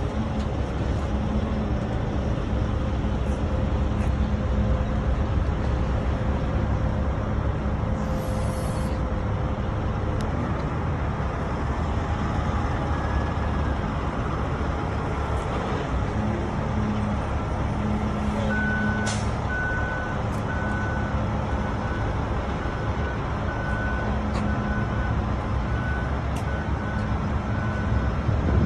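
A heavy vehicle engine running steadily, with a reversing alarm beeping regularly, a little more than once a second, from about two-thirds of the way in until near the end.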